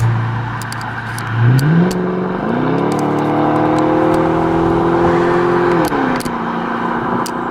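A car engine's hum rises in pitch in two steps, holds for about three seconds, then drops back to a lower steady note, like an engine being revved and eased off. Scattered sharp clicks come through over it.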